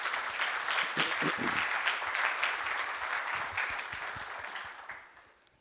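Audience applauding, a dense patter of many hands clapping that holds for a few seconds and then dies away about five seconds in.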